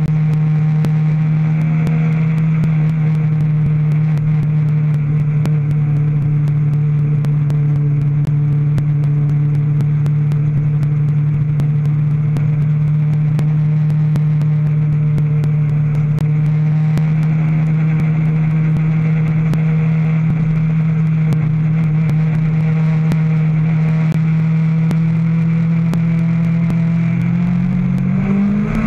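Legends race car's four-cylinder Yamaha motorcycle engine running hard at a steady high pitch, heard onboard with wind noise and crackle over the microphone. Near the end the pitch climbs as the car accelerates.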